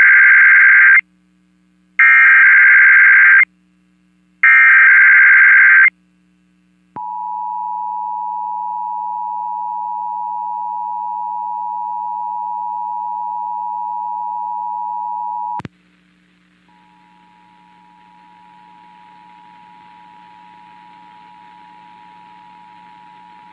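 Emergency Alert System test signal: three short, loud bursts of SAME digital header data, screechy modem-like tones, followed after a second's pause by the EAS two-tone attention signal (853 and 960 Hz sounded together), held for about eight and a half seconds and cut off with a click. About a second later the attention signal starts again, fainter and over rising hiss.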